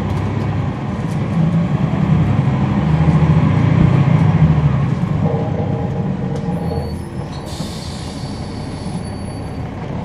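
Inside a NABI 40-SFW transit bus, its Cummins ISL9 six-cylinder diesel engine drones low, building as the bus pulls away over the first four seconds or so and then easing off. About seven seconds in, a high hiss with a thin squealing tone comes and goes.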